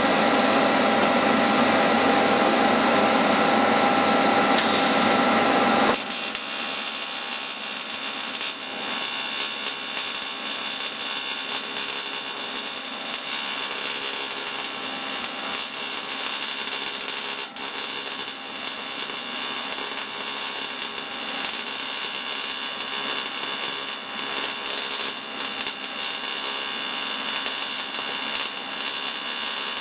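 TIG arc on a bronze motorcycle fuel-tank mount, TIG brazing a crack: a steady crackling hiss from about six seconds in. Before it comes a louder, steady rushing machine noise that cuts off suddenly.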